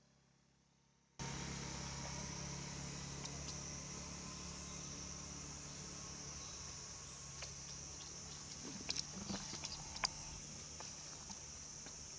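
A steady, high-pitched insect chorus starts suddenly about a second in. A few faint clicks and taps sound in the second half.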